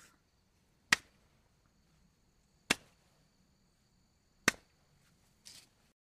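Three sharp, single clicks about two seconds apart, then a faint short hiss near the end.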